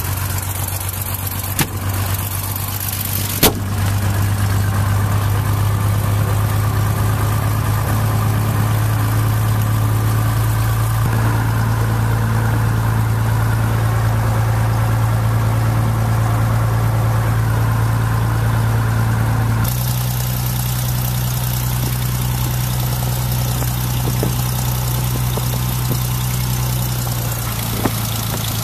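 A Cessna 172's piston engine and propeller running at low power while taxiing, heard inside the cabin as a steady hum. It gets louder about three and a half seconds in, and its note shifts about twenty seconds in.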